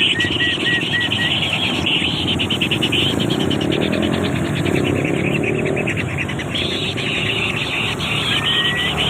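Birds calling: a rapid, buzzy chatter that runs on, with a quick run of short whistled notes at the start and two longer whistles near the end, over a steady low background noise.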